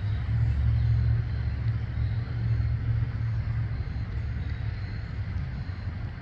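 Low rumble of a car going by, loudest in the first few seconds and slowly easing off.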